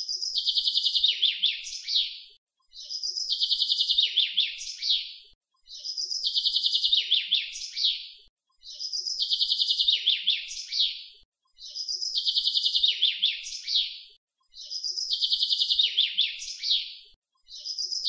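A songbird's song. A rapid high trill followed by a few lower sweeping notes, the same phrase repeated identically about every three seconds.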